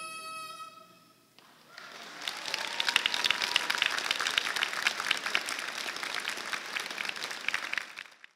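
The last held note of the dance music fades away in the first second or so, then an audience applauds, and the applause cuts off suddenly near the end.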